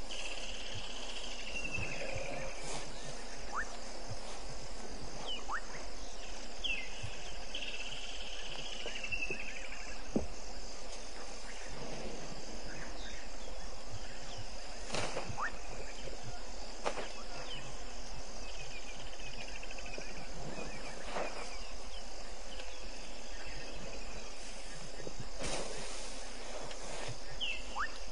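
Steady night-time chorus of crickets and other insects: a high, evenly pulsing buzz. Every few seconds a separate trilled call falls in pitch, lasting about a second and a half. A few short snaps break in past the middle.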